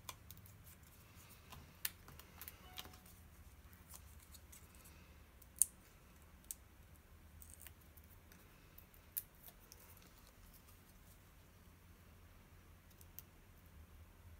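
Faint paper handling with scattered small clicks as foam adhesive dimensionals are peeled from their sheet and a paper sentiment strip is pressed onto a card, with a few sharper clicks here and there.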